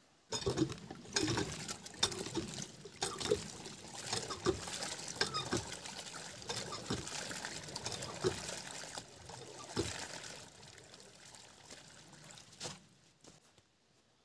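Water pouring from a pipe into plastic buckets, with scattered knocks. It dies away about ten seconds in.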